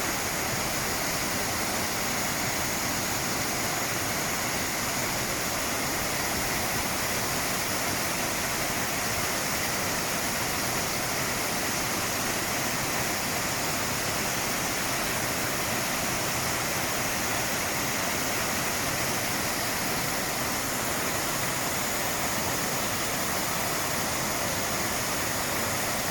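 Water pouring down the Bigăr waterfall, a steady, even rush.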